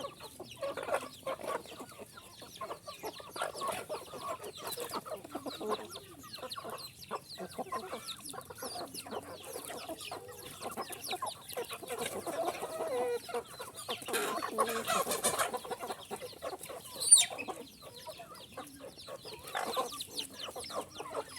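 Domestic chickens clucking, with many short calls one after another. About seventeen seconds in, one loud high-pitched call stands out above the rest.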